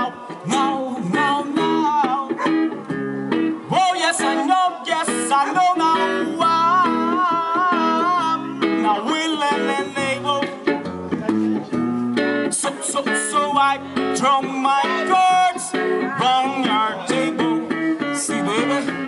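Guitar-led music playing, a passage without sung lyrics, with a wavering melody line in the middle.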